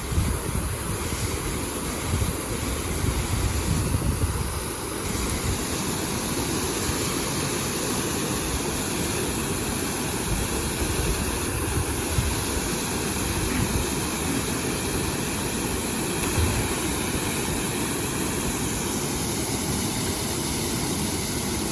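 Waterfall rushing close to the microphone: a steady loud roar of falling water, with low rumbles now and then.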